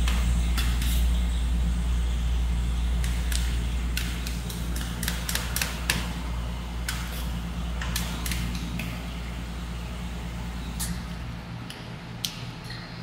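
Metal spatulas clicking and scraping on the frozen steel plate of a rolled-ice-cream maker, in irregular sharp strokes, over a steady low hum that fades away near the end.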